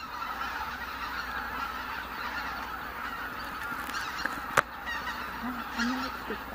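A large flock of greater white-fronted geese calling all together in a dense, unbroken chorus of honking. A single sharp click comes about four and a half seconds in.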